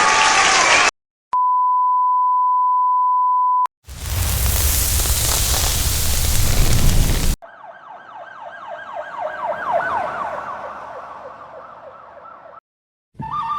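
A run of stock sound effects played back to back: a steady one-tone beep like a censor bleep for about two seconds, then a loud burst of rushing noise for about three seconds, then a wavering siren-like wail for about five seconds.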